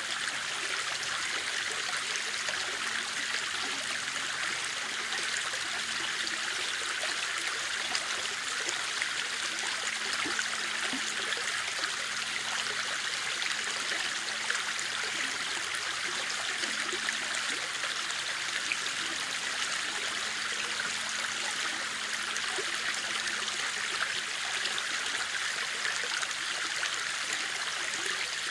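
River water running steadily, a constant rushing flow.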